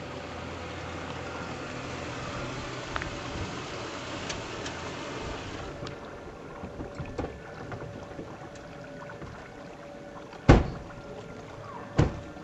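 Ford Explorer SUV rolling slowly up an asphalt driveway with its engine running, the tyre and engine noise dropping about six seconds in as it stops. Near the end, two car doors slam shut about a second and a half apart, the first louder.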